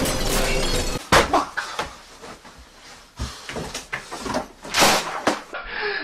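Music that stops about a second in, followed by a run of loud bangs, thuds and crashes as objects are knocked over and thrown about. The hardest bang comes right after the music ends, and another crash comes near the end.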